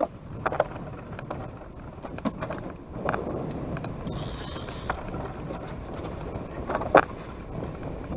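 Wind rushing on the microphone in a small wooden river boat, with several short sharp knocks on the boat, the loudest about seven seconds in.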